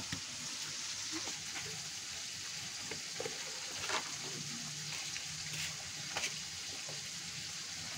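A steady hiss with a few faint clicks and knocks.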